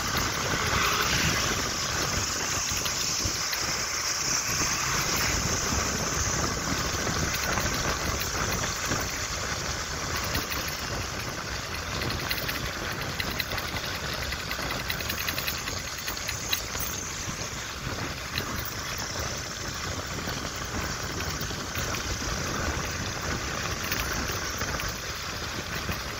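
Steady running noise of a vehicle driving on a wet road, heard from inside the moving vehicle: engine hum mixed with the hiss of tyres on wet tarmac.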